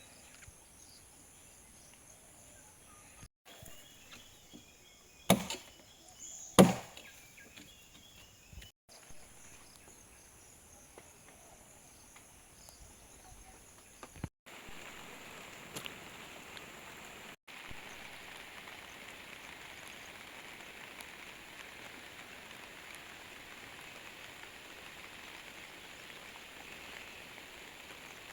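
Two heavy blows on wood about a second apart, with a few lighter knocks around them, the work of cutting or driving logs for a log dam. From about halfway through, a steady hiss takes over.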